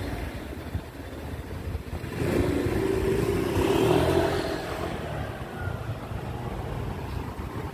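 Motor scooter riding past close by: its engine note swells from about two seconds in, is loudest around the middle, then fades, over steady low street noise.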